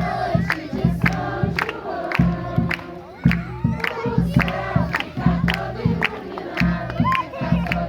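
A crowd singing together over a steady percussive beat of about two hits a second.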